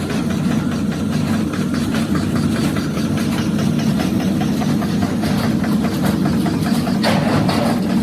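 A machine's motor running steadily, a low drone with a fast, even clatter over it. A short burst of hissing, scraping noise comes about seven seconds in.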